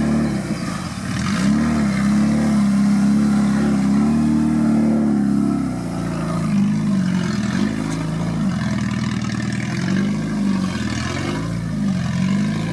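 Suzuki Samurai 4x4's engine revving under load as it crawls over rough off-road ground. The revs climb about a second in and hold high for several seconds, then rise and fall again and again as the driver works the throttle.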